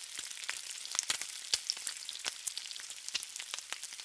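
Bacon strips frying on a flat top griddle: a steady sizzle of hot fat, dotted with many sharp crackles and pops.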